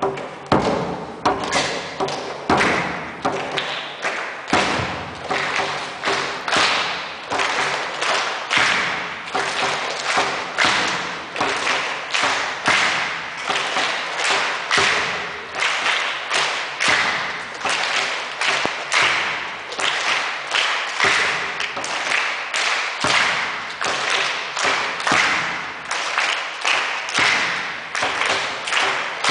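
Frame hand drum struck with a beater in a steady beat, about two strikes a second, each stroke ringing out briefly.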